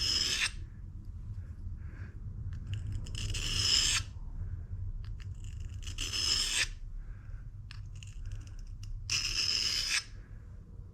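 Drill bit being honed by hand on a sharpening stone: four scraping strokes of steel on stone, roughly three seconds apart.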